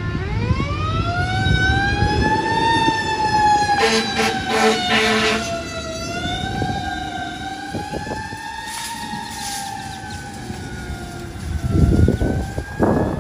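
Fire engine siren wailing, its pitch climbing at the start and then slowly rising and falling, with a run of short horn blasts about four seconds in, over the low rumble of the truck going past.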